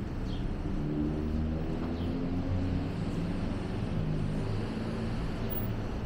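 A car driving slowly past on a city street with its engine running, a steady low hum over the noise of street traffic.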